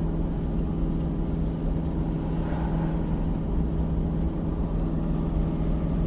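Engine of an off-road side-by-side running at a steady speed, a constant hum with a low rumble underneath.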